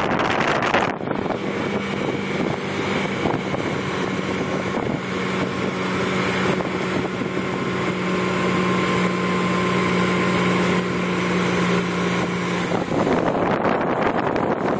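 Motorboat engine running at a steady towing speed, a constant drone, with wind buffeting the microphone and the wake rushing behind the boat.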